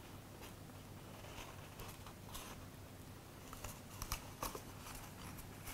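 Faint rustling and a few small clicks as a ribbon is worked around a brass paper fastener on a cardboard tube.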